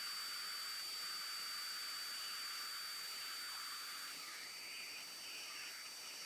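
Steady hiss of a hot-air rework wand blowing, with a thin high whine running under it; the hiss eases slightly after about four seconds.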